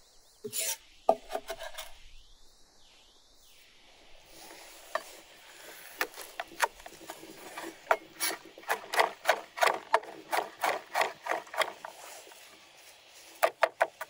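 Cleaver chopping garlic cloves on a wooden cutting board. A scrape and a few knocks near the start, then single strokes, then steady chopping at about three strokes a second from about eight seconds in. After a short pause near the end comes a faster run.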